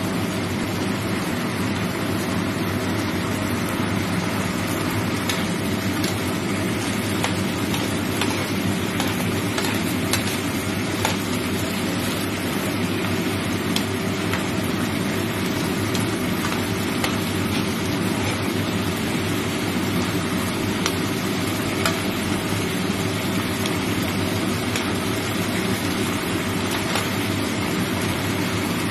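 Long beans and fried beancurd puffs sizzling in a pan of bubbling sauce, with small scattered crackles, over a steady low hum.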